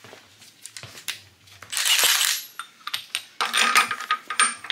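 Small metal tools and parts clinking and rattling against each other, with a short hissing rustle about two seconds in and a denser run of metallic clinks near the end.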